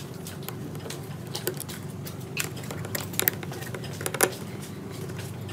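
Small screwdriver working the screws in the metal frame of a disc player's drive mechanism: scattered light metallic clicks and scrapes, the two sharpest about a second apart past the middle, over a steady low hum.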